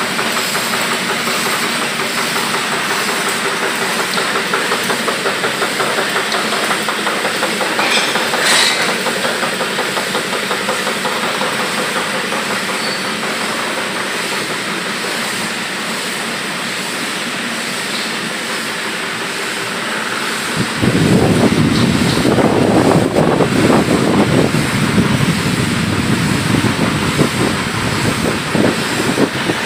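Rows of screw-making machines running together in a fast, steady mechanical clatter. About two-thirds through, a louder, deeper pounding from a nearer machine joins in.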